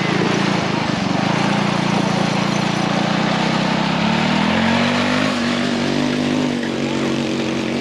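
Engine of an off-road vehicle running steadily, its pitch stepping up about four to five seconds in.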